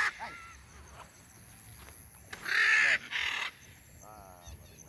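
A pet bird gives two loud, harsh, raspy calls in quick succession about two and a half seconds in, followed by a quieter wavering note near the end.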